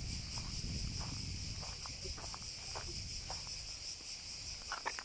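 A chorus of cicadas shrilling steadily in the trees, a continuous high-pitched buzz, with a low rumble underneath and a few short sharp sounds near the end.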